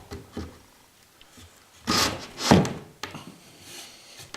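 Wooden newel post knocking and rubbing against the chipboard floor as it is fitted into a freshly cut square hole, with two louder wooden thuds about two seconds in.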